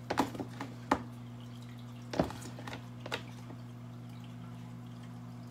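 Table knife spreading butter onto split hot dog buns: a few short scrapes and taps at uneven intervals in the first three seconds, over a steady low hum.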